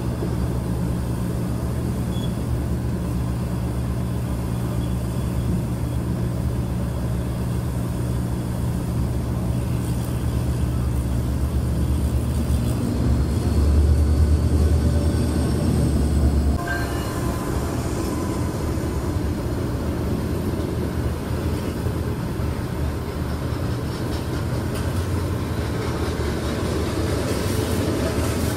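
Freight train of tank cars rolling past close by, a steady low rumble. A diesel locomotive at the rear of the train passes about halfway through, bringing a louder engine rumble that cuts off suddenly. A lower steady rumble continues after it.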